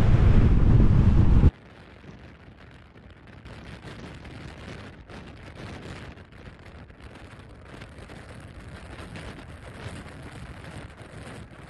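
Strong wind buffeting the camera microphone, which cuts off abruptly about a second and a half in. A much quieter stretch of faint wind with light crackling follows.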